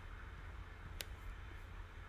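Faint room tone with a low hum, and a single computer mouse click about a second in.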